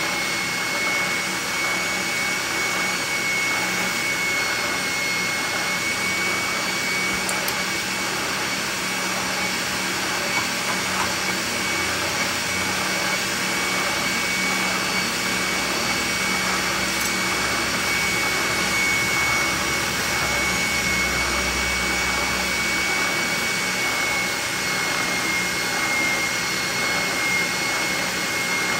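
Benchtop oscillating spindle sander running with a shop vacuum drawing dust from it: a steady rush of air with a constant high whine.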